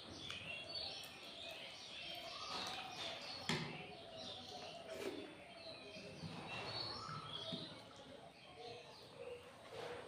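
Small birds chirping, with one sharp click about three and a half seconds in.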